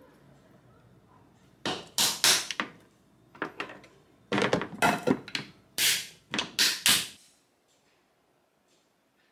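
Plastic food-storage containers and their snap lids being handled and set down on a stone countertop: a string of sharp clacks and knocks in a few quick bursts that stop near the end.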